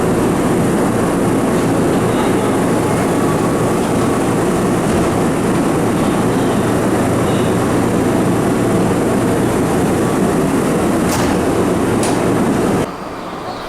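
Electric commuter train running on the line: a loud, steady rumble of wheels and running gear with a low motor hum, with two sharp clanks near the end before the sound cuts off abruptly.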